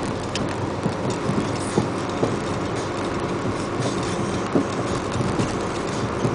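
Steady road and engine noise of a vehicle driving on a wet road, heard from inside the cab through a dash recorder's microphone, with a few short thumps as the tyres cross joints in the road surface.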